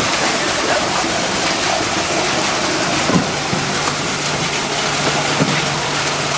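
Steady rushing noise of running water, with a low steady hum joining about three seconds in and a couple of faint clicks.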